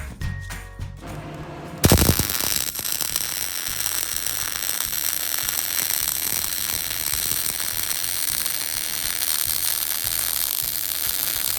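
A power tool working metal cuts in suddenly about two seconds in and runs steadily, a harsh hiss strongest in the highs.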